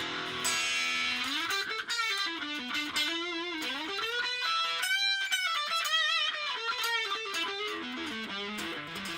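Electric guitar played through a booster pedal: a single-note lead line with string bends and vibrato. It climbs to a held, wavering high note about five seconds in, then works back down.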